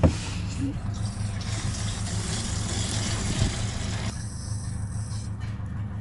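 An engine running steadily with a low hum, with a hiss over it that stops about four seconds in and a short knock at the very start.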